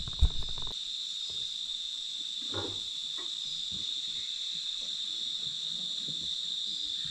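Steady high-pitched chorus of insects in the evening forest, with a single thump about a quarter of a second in and a few faint rustles partway through.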